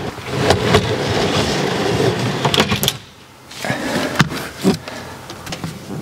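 Heavy-duty telescopic drawer slides running as a large wooden kitchen slide-out is pushed in, a rough rumbling slide with several knocks and clunks. It pauses briefly about three seconds in, then starts again.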